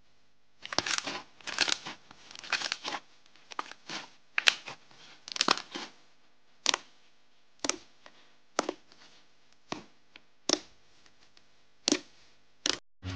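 Pink fluffy slime being squeezed and poked by fingers, its trapped air bubbles crackling and clicking. The first few seconds hold dense runs of crackly squishing, then come single sharp clicks about once a second.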